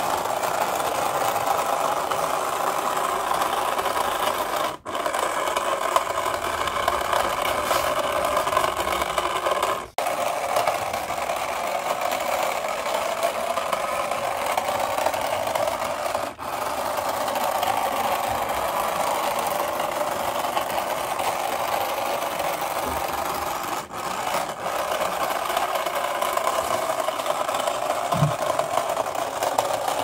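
Small electric motor of a cardboard toy bus running steadily as the bus rolls across a concrete floor, the sound breaking off briefly four times.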